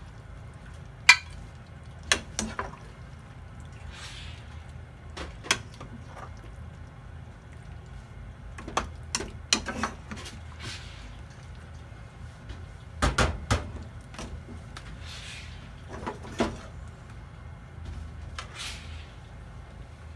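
A metal spoon clinking and scraping against a cooking pot and serving dish while a saucy chicken-and-eggplant stew is dished up: scattered sharp clinks, with a quick cluster of knocks about 13 seconds in, over a low steady hum.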